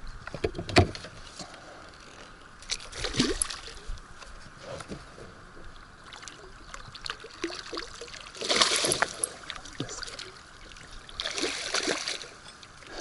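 Water splashing in separate bursts as a hooked asp is brought in and landed. The loudest splashing comes about nine seconds in.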